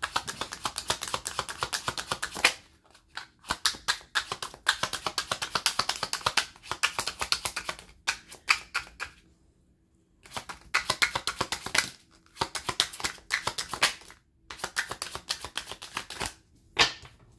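An oracle card deck being shuffled by hand, overhand style: rapid runs of flicking card clicks in several bursts of a few seconds each, with short pauses between.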